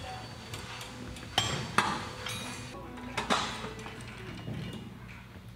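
A few sharp metallic clanks, each with a brief ring, the loudest about a second and a half in, again shortly after, and a double one past three seconds, over faint steady background music.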